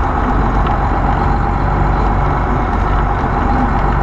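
Semi truck's diesel engine running steadily at low speed, a constant deep rumble with no marked revving.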